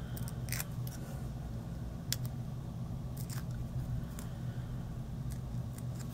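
Release-paper backing being picked at and peeled off foam adhesive squares with the fingernails: scattered small crackles and ticks, over a faint steady low hum.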